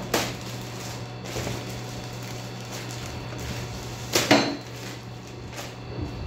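Clear plastic wrapping crinkling as a dartboard panel is pulled out of its bag, with a few hard knocks as the panel bumps about. There is a sharp knock at the start, and the loudest clatter comes about four seconds in.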